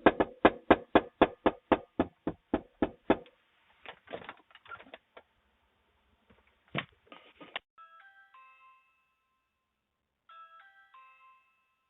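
Fist pounding on a front door in a fast, even series of about four blows a second, stopping about three seconds in, followed by a few scattered knocks. A doorbell chime then plays its short melody twice, once about eight seconds in and again about two seconds later.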